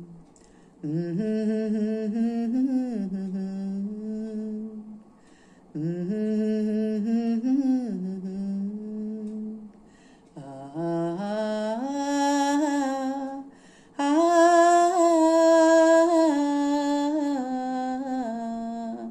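A woman humming a melody unaccompanied, in four phrases with short breaths between them. The last two phrases climb higher and are louder.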